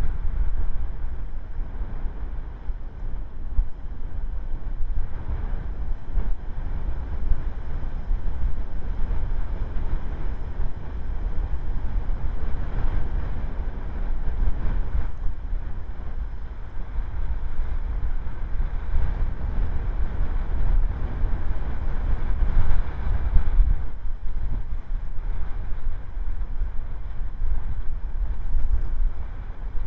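Wind buffeting an outdoor nest-camera microphone: a low rumbling rush that rises and falls in gusts, strongest about two-thirds of the way through.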